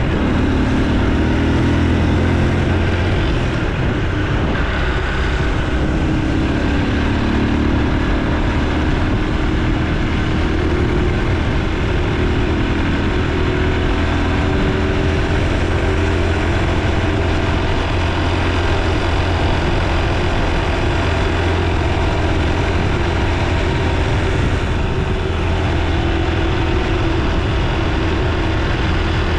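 Honda Super Cub C125's air-cooled single-cylinder four-stroke engine running while the bike is ridden, its note rising and falling a few times with speed. The engine runs over a steady rush of wind and road noise.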